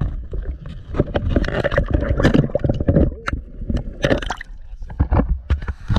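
Water sloshing and gurgling in an ice-fishing hole, with repeated knocks and handling clatter.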